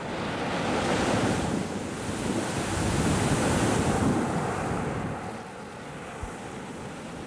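Ocean surf: waves breaking and washing up a sandy beach. The wash swells about a second in and again around three to four seconds, then eases off.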